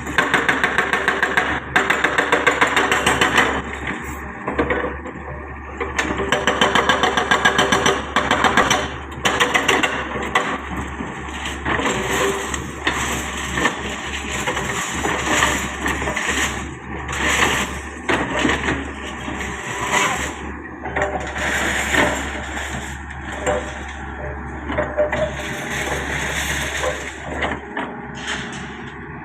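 Hyundai R140W-7 wheeled excavator's diesel engine running, with a fast pulsing beat in the first few seconds and again from about six to nine seconds in.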